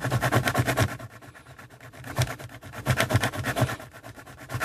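Small screwdriver tip scraping rapidly back and forth over a scratch-off security-code label on a cardboard box, many strokes a second. The scraping eases for about a second after the first second, then picks up again.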